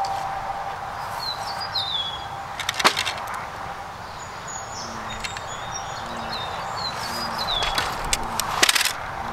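Wire mesh and a wooden cage frame rattling and clacking as they are handled, with two bursts of clattering, about three seconds in and again near the end. Birds chirp in the background with short falling calls.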